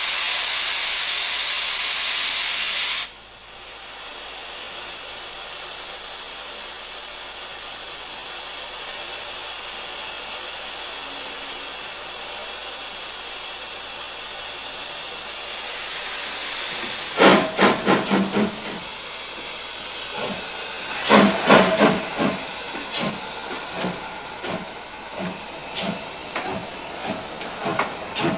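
Steam locomotive letting off a loud hiss of steam that cuts off sharply about three seconds in, leaving a softer steady hiss. From about seventeen seconds in the locomotive works, with repeated exhaust chuffs, first in uneven clusters, then about one a second.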